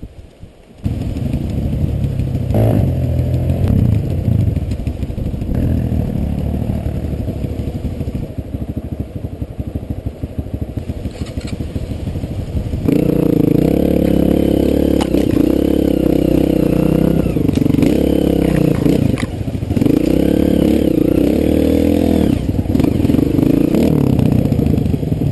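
Four-stroke single-cylinder Honda trail bike engine running at low revs over a rough dirt trail, then from about halfway through louder, revving up and down under throttle.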